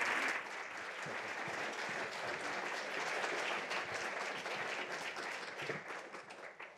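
Audience applauding: dense clapping that is loudest at the start and dies away near the end.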